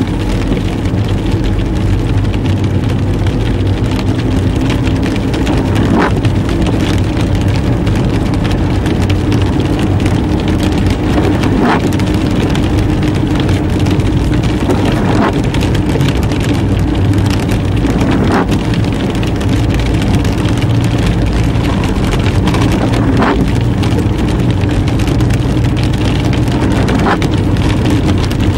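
Car driving on a wet road in rain, heard from inside the cabin: a steady engine hum under the hiss of tyres on wet asphalt and rain on the car. A few short ticks stand out every few seconds.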